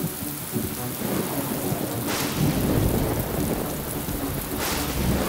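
Thunderstorm: heavy rain falling steadily, with low rolling thunder that swells loudest around the middle.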